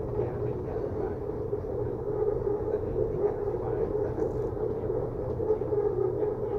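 Inside a BTS Skytrain electric multiple unit car running between stations: a steady rumble of the wheels on the track with an even droning hum from the running gear.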